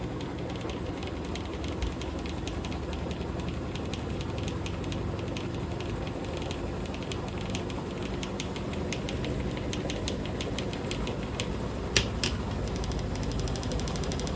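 Washing machine on its spin cycle: a steady hum from the drum and motor, with rapid clicking and rattling throughout and two sharp knocks about twelve seconds in.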